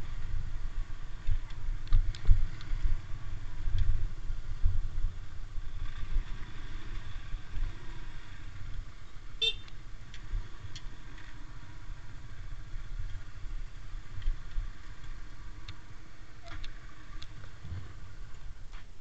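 Motorcycle running while riding, its engine under a heavy, uneven wind rumble on the bike-mounted camera's microphone, with a short horn toot about halfway through.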